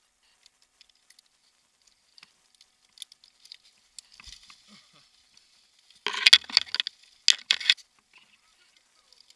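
Climbing rope and metal harness hardware being handled: small clicks and rustles, with a louder run of clattering clicks about six to eight seconds in.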